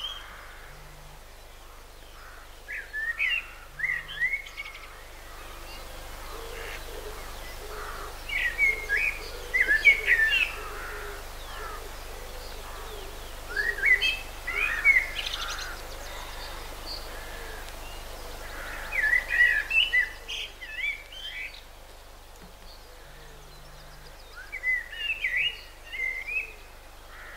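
Eurasian blackbird singing: about five phrases of song, each a couple of seconds long, with pauses of a few seconds between them.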